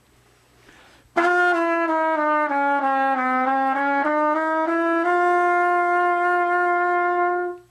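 Trumpet playing a slurred chromatic warm-up, starting about a second in. It steps down one semitone at a time through the seven valve combinations, climbs back up, and ends on a long held note.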